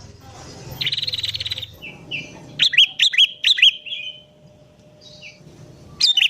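Sooty-headed bulbul (kutilang) singing with prinia-style (prenjak) fill-in phrases. A rapid buzzy trill lasts about a second, then four loud, sharp, hooked whistled notes come in quick succession, and more sharp notes start near the end.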